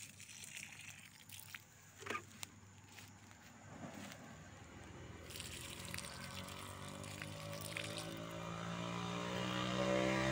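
An engine running with a steady hum that grows gradually louder through the second half, after a few scattered clicks and rustles.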